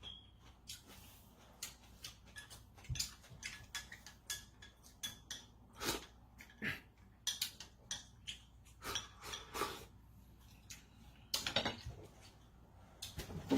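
Someone eating close to the microphone: irregular soft chewing and mouth smacks mixed with small clicks of utensils against a dish.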